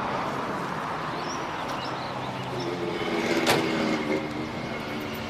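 A car door of an old sedan is shut once, sharply, about three and a half seconds in, over a steady background of street noise.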